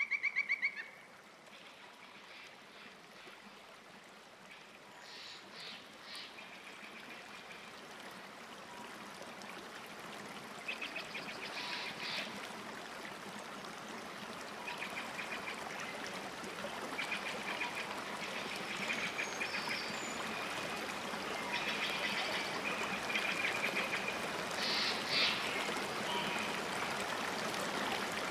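Pond-side ambience: a steady hiss that slowly grows louder, with short bursts of chattering bird calls scattered through it. A loud, rapidly pulsed call stops about a second in.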